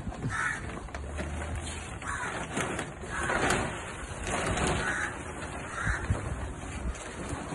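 A plastic tarp rustling and crinkling as it is dragged off a crated machine, loudest a few seconds in, while crows caw several times.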